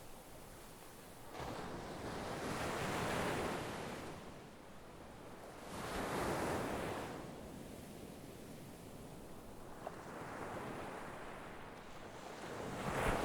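Sea waves rushing in, swelling and falling back in surges every three to four seconds.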